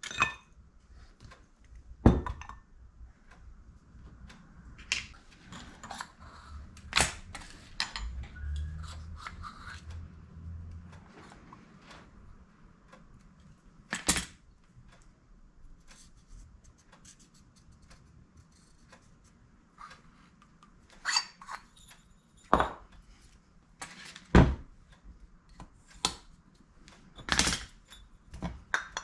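Metal engine parts being handled and set down on a workbench: scattered sharp knocks and clicks, first from a motorcycle carburetor and later from the RZ350's two-stroke cylinders and a piston.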